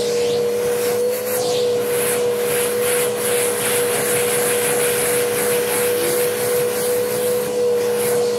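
Vacuum cleaner running with a steady motor whine and rushing air, its black hose nozzle drawn over carpet.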